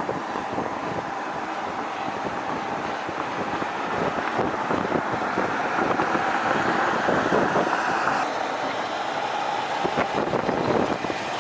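Mercedes-Benz GenH2 fuel-cell truck driving: a steady rush of road and wind noise that grows louder about four seconds in and shifts in tone about eight seconds in.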